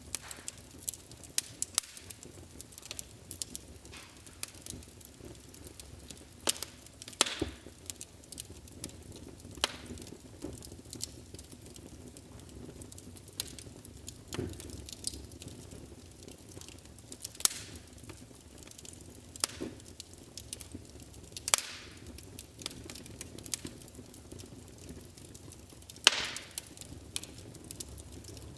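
Wood fire burning in a fireplace, crackling with irregular sharp pops and snaps over a low, steady hiss of flame; a few louder cracks stand out, the loudest near the end.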